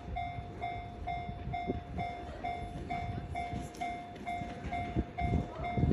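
Japanese level-crossing warning alarm ringing its repeated electronic "kan-kan" bell tone, about two strokes a second, over a low rumble that swells near the end.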